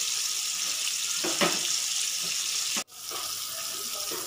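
Flour-coated chicken pieces deep-frying in hot oil: a steady sizzle with a few faint crackles. It cuts out for an instant about three seconds in, then carries on.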